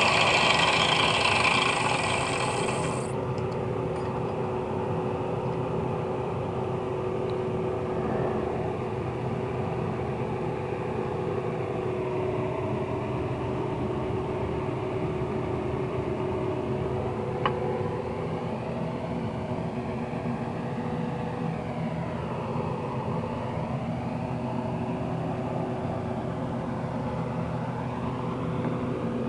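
Angle grinder rigged as a cut-off saw: loud grinding hiss of the abrasive disc cutting, which stops suddenly about three seconds in, then the motor runs on steadily with an even hum.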